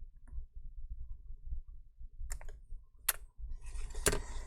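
Small plastic laptop parts being handled: a few sharp clicks around the middle, then steady rustling with a louder click near the end.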